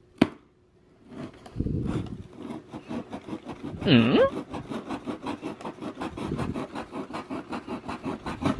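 A knife blade sawing back and forth through the side of a cardboard box: a fast, even scraping rasp of about six strokes a second, starting about a second in. About four seconds in, a short pitched sound swoops down and back up over it.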